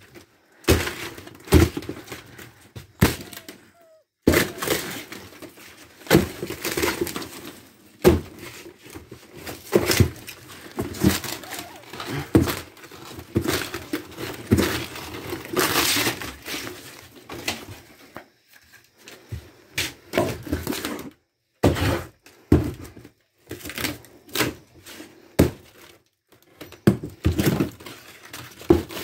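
Camper wall paneling and wooden framing being torn out by hand: irregular knocks, cracks and scraping, with short pauses between pulls.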